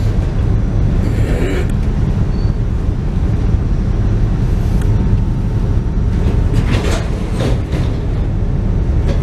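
Steady low rumble inside a rapid transit train car, heard from a passenger seat as the train reaches a station.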